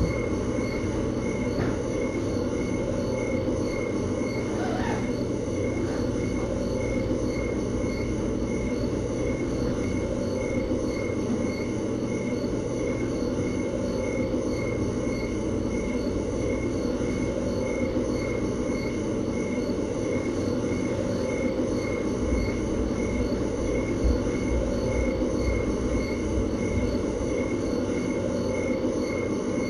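Steady low room noise picked up by a live-stream camera's microphone, with a fainter high tone pulsing evenly a few times a second over it.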